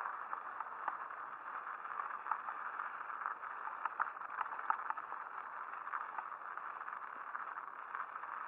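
Mountain bike rolling over a slushy, snow-patched trail: a steady hiss of tyres on wet snow, broken by frequent small rattles and knocks from the bike over bumps.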